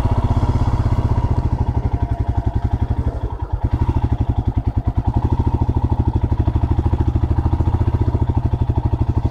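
Motorcycle engine running under way, its exhaust pulses a steady low beat. It eases briefly about three and a half seconds in, then pulls steadily again.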